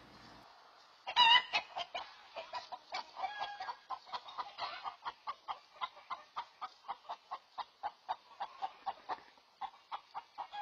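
A chicken gives a loud squawk about a second in, then a long run of quick, repeated clucks, about three a second, that slowly fade: alarm calling at a hawk. It is heard through a security camera's outdoor microphone.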